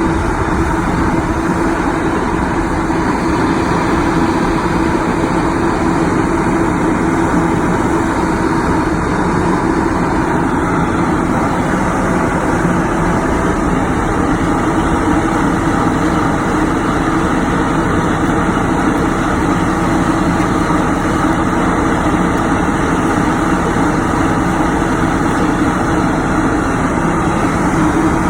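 A heavy engine running steadily at a constant speed, with an even hum and no revving.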